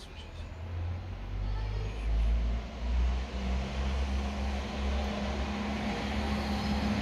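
A motor vehicle's engine running, a deep steady hum that grows louder over the first two seconds and then holds level.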